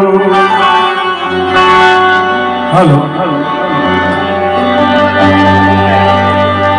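Instrumental music: sustained melodic notes over a low, steady drone, with a voice briefly saying "hello" about three seconds in.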